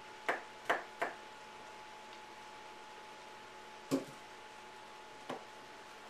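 Kitchen knife chopping a small radish on a cutting board: three quick knocks in the first second, then two more single knocks a few seconds apart. A faint steady high hum runs underneath.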